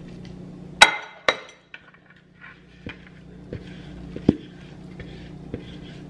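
A ceramic bowl set down on a stone countertop with a sharp clack about a second in, then a second knock. Scattered light clinks and taps follow as salad is tipped and scraped into it from a wooden bowl, with one louder tap a little after four seconds.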